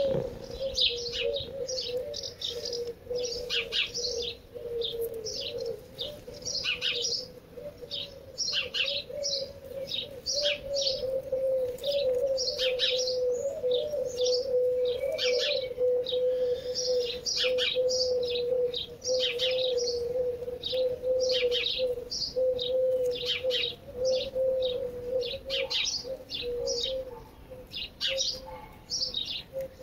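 Small birds chirping and tweeting, many short calls in quick succession, over a steady, slightly wavering hum.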